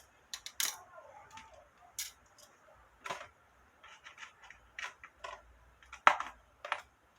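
Irregular small clicks and taps of hand work on a cicada specimen as it is set and pinned, a dozen or so, the sharpest about six seconds in.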